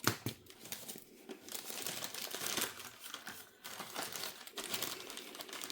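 Packaging crinkling and rustling in irregular bursts as a mail package is unwrapped by hand.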